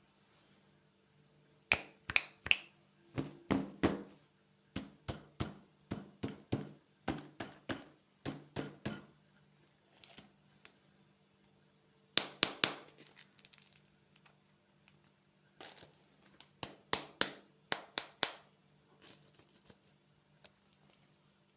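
Candy packaging crinkling and tearing as it is handled and opened: several bursts of sharp crackles, over a faint steady hum.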